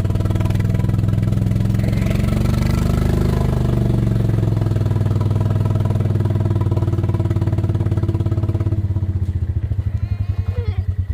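Small vehicle engine running steadily, then slowing to a slow putter in the last couple of seconds as it comes down to idle.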